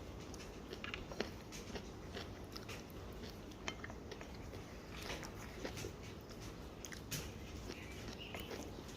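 Close mouth sounds of someone chewing kimchi, the crisp fermented cabbage giving small crunches and wet clicks at irregular moments.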